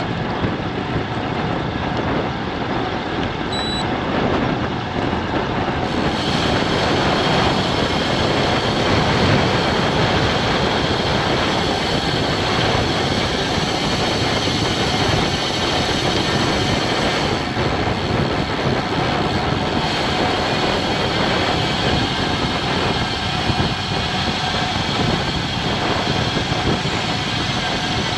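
Steady rush of wind buffeting a bike-mounted GoPro Hero 9's microphone, mixed with road bike tyres rolling on asphalt at speed. The noise grows a little brighter about six seconds in.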